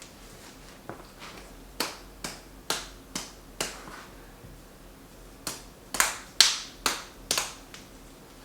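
Sharp percussive strikes, a run of five at about two a second, then after a pause a louder run of six.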